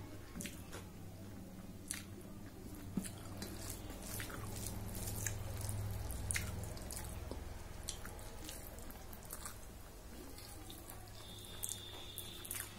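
Eating by hand from a stainless steel plate: scattered soft, wet clicks and smacks as fingers mix and scoop rice and dal, and as the food is chewed, over a low steady hum.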